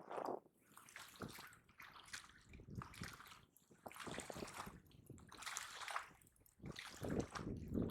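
Small waves lapping and sloshing against the bank in irregular, soft washes, stirred up by strong wind.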